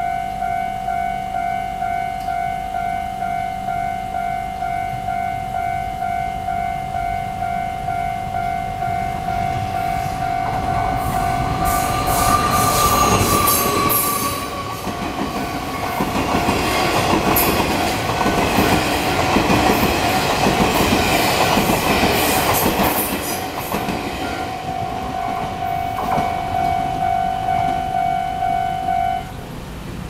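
Level-crossing warning bell ringing in a steady repeating ding-ding. About ten seconds in, a TRA Chu-Kuang Express passenger train passes with a short horn, its wheels clattering over the rails for around fourteen seconds. The bell stops shortly before the end.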